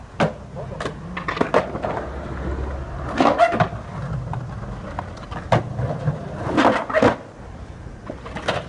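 Skateboard wheels rolling over rough concrete with a low rumble, broken several times by the sharp clack of the board popping and landing.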